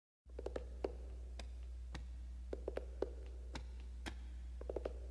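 Faint steady low hum with scattered, irregular soft clicks and taps: the background of a live recording before the music starts.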